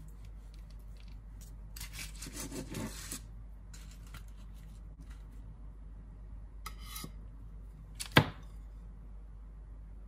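Serrated knife sawing through a chocolate loaf cake on a wooden cutting board, one rasping stroke of about a second and a half, then a few short scrapes. A sharp clack near the end is the loudest sound.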